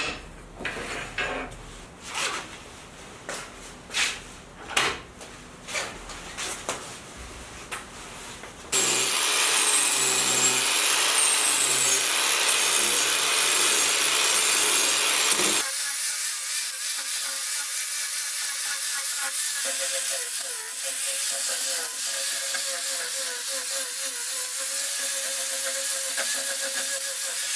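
Bamboo root being worked with tools: a few scattered wooden knocks at first, then, about a third of the way in, a loud steady cutting noise sets in. About halfway through it gives way to a steadier, thinner noise with a faint held tone.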